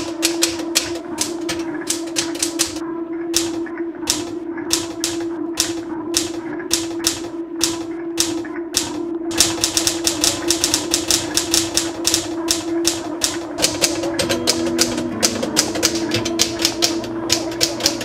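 Typewriter keys striking, a few strokes a second at first, then a much faster run of typing from about halfway, over a steady low hum. Near the end, a few held low notes come in underneath.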